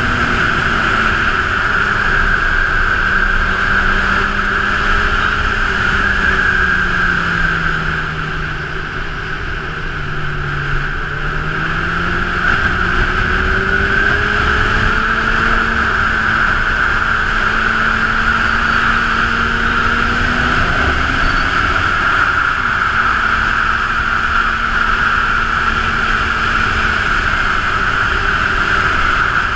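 Honda CB1000R's inline-four engine running on the road, its note falling as the bike slows about eight to eleven seconds in, then rising again as it accelerates and holding steady, over a continuous rush of wind and road noise.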